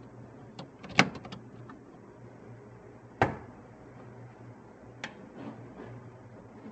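Sharp knocks and clicks of hands and a tool working on hard plastic and metal behind a car dashboard. There is a quick cluster of clicks about a second in, one loud knock about three seconds in, and a few lighter clicks later.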